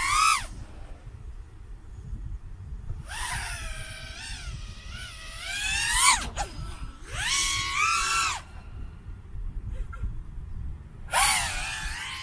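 A 6S FPV quadcopter's motors and propellers whining, the pitch rising and falling with the throttle in separate passes. Loudest in a sharp swoop just after six seconds in as it flies close by, with further passes around seven to eight seconds and near the end.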